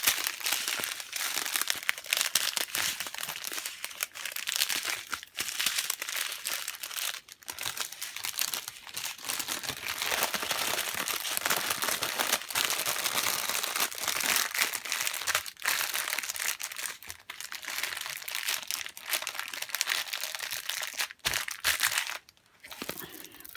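Plastic packaging crinkling continuously as it is handled and unwrapped, easing off near the end.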